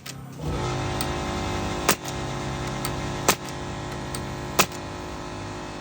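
Air compressor motor kicking on and running steadily, with a pneumatic nail gun firing three sharp shots about a second and a half apart.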